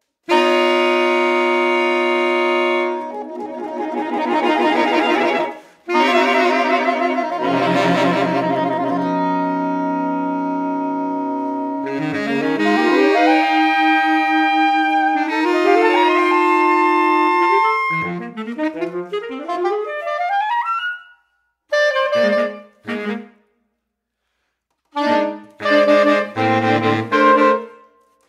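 A saxophone quartet of soprano, alto, tenor and baritone saxophones playing contemporary chamber music. It holds long chords, then the lines move in quick rising runs, and near the end it breaks into short detached chords separated by pauses.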